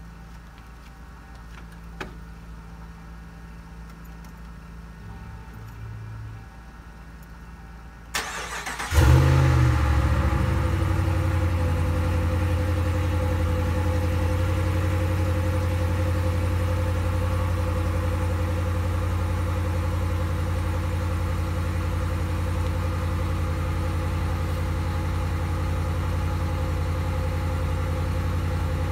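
A vehicle engine cranked by its starter about eight seconds in, catching a moment later, then idling steadily and loudly.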